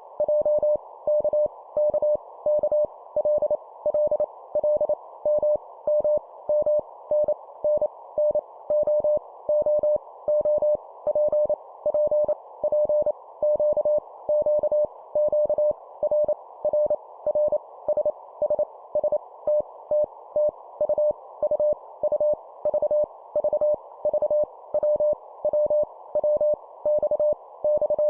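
Morse code (CW) at 25 words per minute: a single steady beep tone keyed on and off in dots and dashes, each letter sent three times, over a soft band of hiss.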